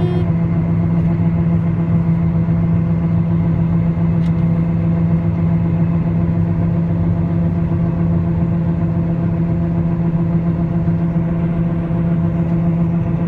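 John Deere 9400 combine's diesel engine and threshing machinery running steadily under harvest load, a constant even-pitched drone.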